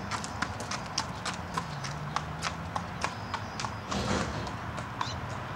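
A Thoroughbred horse's hooves clip-clopping on a hard driveway at a walk, an even beat of about three sharp hoof strikes a second. A brief rush of noise sounds about four seconds in.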